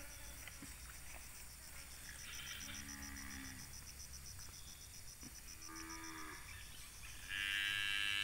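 Bali cattle mooing: two short, fairly quiet moos, then a much louder, longer moo starting about seven seconds in.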